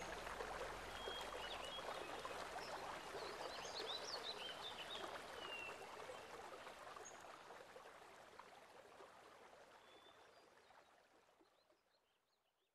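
Water dripping and splashing off a kayak paddle as it dips and moves through the swamp water, with small birds chirping now and then. The sound fades away steadily over the second half.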